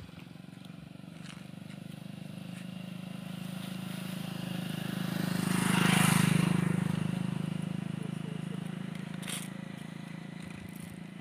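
A motorcycle passing along the road: its engine hum grows louder to a peak about six seconds in, then fades away.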